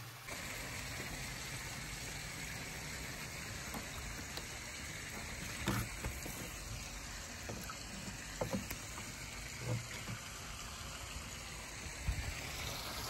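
Small rock waterfall splashing steadily into a pond, with several short low knocks from about halfway on.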